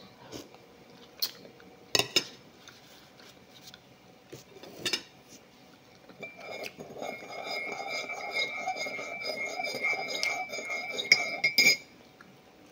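A few separate spoon clinks against a bowl, then a metal spoon stirring a drink in a metal mug: about five seconds of rapid clinking with a steady ringing tone, ending abruptly with a couple of sharper clinks.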